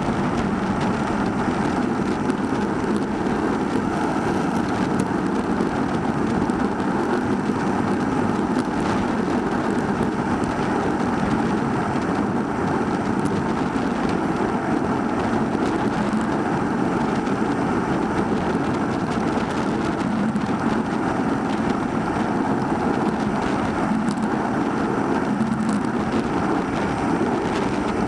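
Steady wind and road noise from a bicycle under way, picked up by the microphone of a Cycliq Fly 12 bike-mounted camera.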